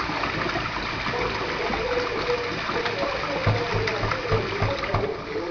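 Water running from a kitchen tap and splashing into a stainless-steel sink, where a pet blackbird is bathing.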